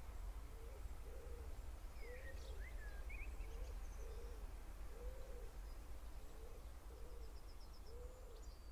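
Quiet countryside ambience: a soft low animal call repeats about three times every two seconds. A few higher bird chirps and whistles come through it over a low rumble.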